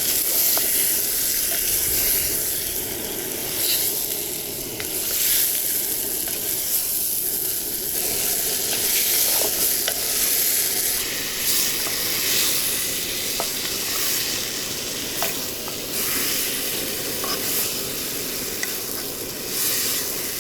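Chunks of baby camel meat sizzling as they fry with spices in a pot, with occasional scattered clicks and scrapes of a stirring utensil against the pot.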